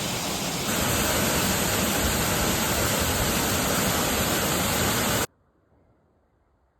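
Mountain waterfall's steady rush of falling water, a dense even noise that gets a little louder about a second in. It cuts off abruptly about five seconds in, leaving near silence.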